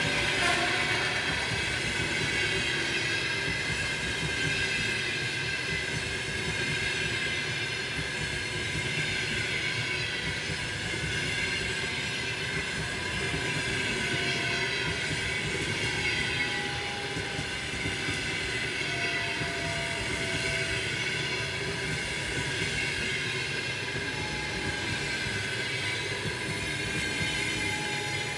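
A long train of passenger coaches rolling steadily past, wheels running on the rails, with faint high steady ringing tones over the rolling noise.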